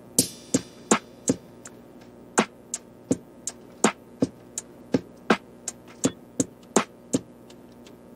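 Background music: a held chord with a sharp, clicky percussion beat that comes in at the start, about three hits a second.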